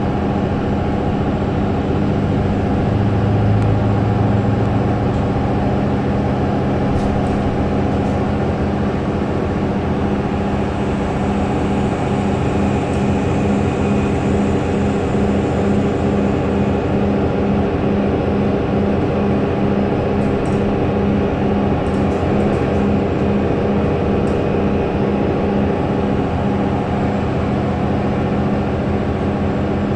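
Mercedes-Benz O530 Citaro city bus heard from inside the cabin: its diesel engine and drivetrain running with a steady hum, with a low drone that swells about three to five seconds in.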